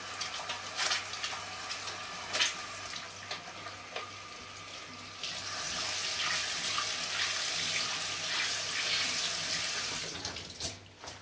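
Water running from a kitchen tap into a stainless steel sink as hands are soaped and rinsed under the stream, with a few short splashes. The water is louder through the middle as the hands work in the stream, then stops near the end as the tap is shut off.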